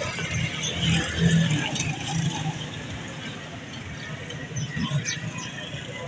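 Outdoor market background noise: a steady hubbub with distant voices coming and going, busiest in the first couple of seconds.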